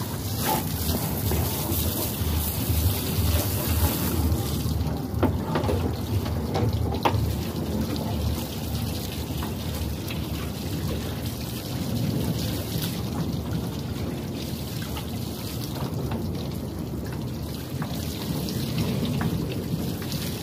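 Water from a hose spraying and splashing into the open compartment of a Trane packaged rooftop air-conditioning unit as it is washed out, a steady hiss and spatter over low wind rumble on the microphone.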